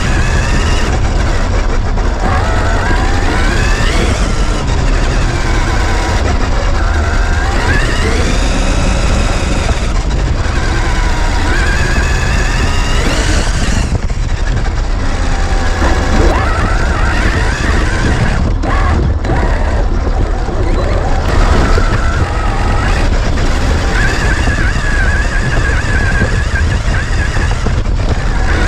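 Electric drive motor of a Traxxas RC truck whining, its pitch rising and falling again and again as the throttle is worked. Under it is a steady low rumble, heard through a camera mounted on the truck.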